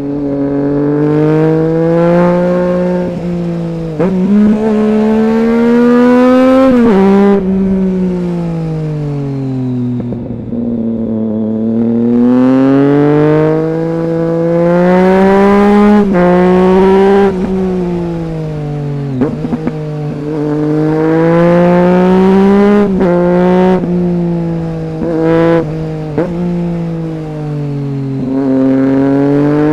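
2008 Triumph Street Triple 675's three-cylinder engine through a Roadsitalia aftermarket exhaust with one of its two dB killers in, running at mid revs under way: the note climbs and falls smoothly over several seconds, with sudden drops in pitch like gear changes or the throttle shutting, about 7 and 19 seconds in.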